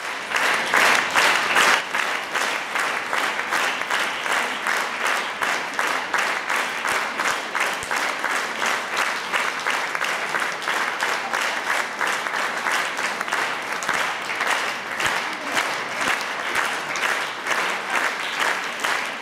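Theatre audience applauding a curtain call, a dense clatter of many hands that begins suddenly and later settles into more even, rhythmic clapping.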